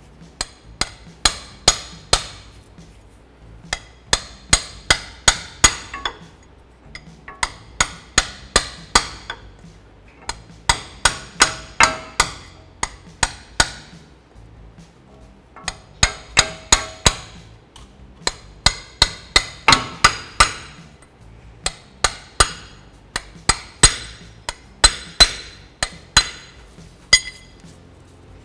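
Hammer blows on a steel punch, driving a new CV axle seal into the front differential housing. Sharp metal-on-metal strikes come in bursts of about four to eight, roughly three a second, with short pauses between bursts, and some strikes ring briefly.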